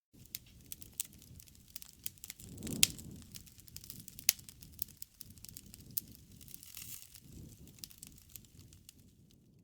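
Wood fire crackling: irregular sharp snaps and pops over a low flutter of burning flames, with one loud pop a little under three seconds in.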